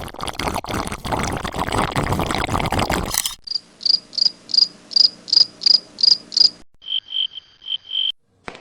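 A rough, noisy clatter for about three seconds, then a run of evenly spaced high-pitched chirps, about three a second. Near the end comes a shorter, quicker run of lower chirps, in the manner of an insect calling.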